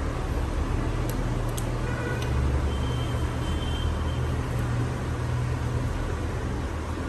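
Steady low background rumble, with a couple of faint clicks about a second in.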